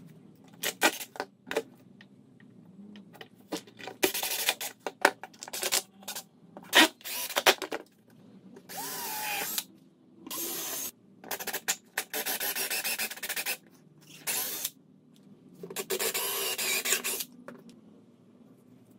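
Stanley cordless drill-driver driving screws into wooden blocks on a walnut tabletop, in several short runs of a second or two, the first with a rising whine as the motor spins up. Sharp clicks and knocks of handling the drill and parts come in between, mostly in the first few seconds.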